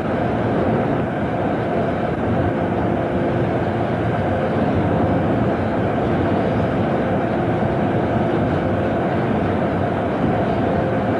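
Electro-servo-hydraulic road-simulator rig shaking a Rover 800 prototype on its wheel pans, replaying pavé road-load data: a loud, steady dense noise with short tones coming and going.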